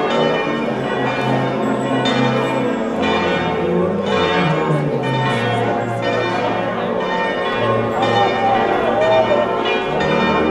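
Church bells ringing, struck over and over in a continuous peal.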